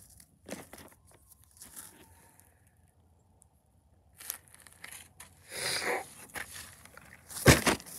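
Plastic toy animal figurines being handled on gravel and dry straw, making scattered small crunches and clicks. A longer rustle comes about five and a half seconds in, and a loud knock comes near the end.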